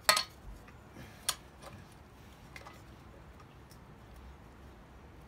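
Metal clinks as a steel bearing-driver disc is set into the balance shaft bearing bore of a 4G63T cast-iron engine block: a sharp clink right at the start, a second about a second later, then a few faint taps.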